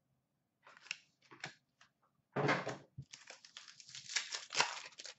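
Hockey cards and their packaging being handled on a glass counter: a few light taps, then a louder rustle about halfway through, followed by a quick run of crinkling and clicking.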